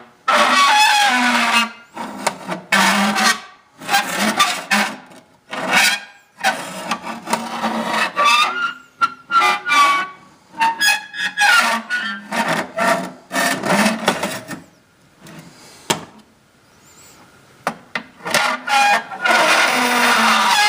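Homemade imitation of the 'strange sounds from the sky': repeated drawn-out groaning, scraping tones that waver and glide in pitch, a second or two each with short gaps between, and a quieter stretch after the middle.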